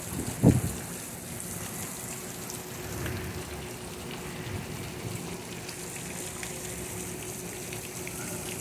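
Garden fountain splashing into an ornamental pond, a steady wash of water noise, with one short low thump about half a second in.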